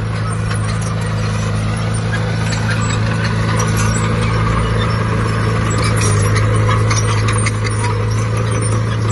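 Heavy diesel earthmoving machine engine running at a steady pitch, with small metallic clicks and knocks over it.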